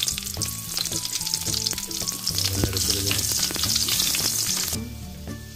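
Garlic cloves sizzling and crackling in hot mustard oil in an aluminium karahi, stirred with a wooden spatula. The sizzle falls away sharply near the end.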